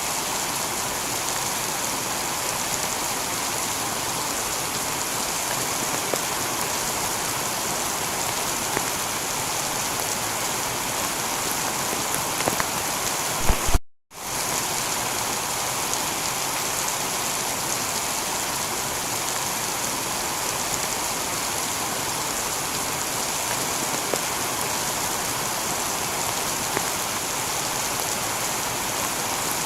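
Heavy rain falling steadily on a tiled roof, a dense even patter with a few sharper drips. About halfway through, a few louder drips come just before the sound cuts out completely for a split second, then it resumes.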